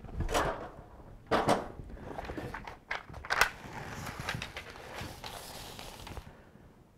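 Grace Vycor Plus self-adhered flashing tape being worked by hand: its paper release liner crinkles as it is peeled back, and the tape rustles as it is rubbed down onto housewrap. A few sharp crackles in the first three and a half seconds, then a steady rubbing rustle that stops about six seconds in.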